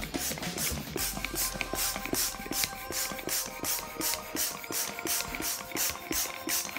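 Plastic hand balloon pump being worked quickly, a short hiss of air with each stroke, several a second, as a latex balloon inflates.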